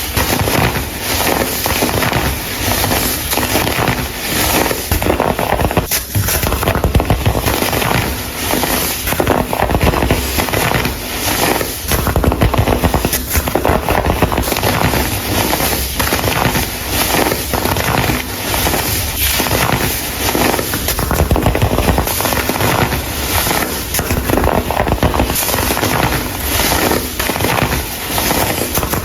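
Dried baking soda chunks being crushed and crumbled, a dense, continuous run of crisp crunches and crackles.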